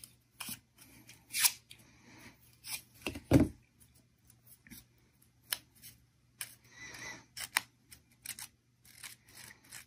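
Crepe paper leaf being curled with a curling tool: irregular short scraping strokes and paper rustles, the strongest about three seconds in.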